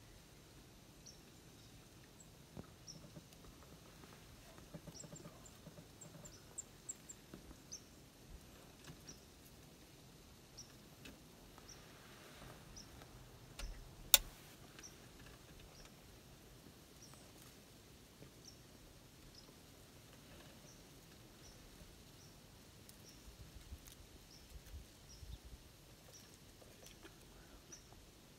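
A small animal's short, high chip call, repeated faintly about once a second, over quiet woodland. One sharp click sounds about halfway through.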